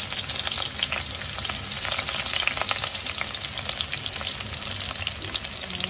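Sliced onion rings frying in hot oil in a pot: a steady sizzle thick with small crackles and pops.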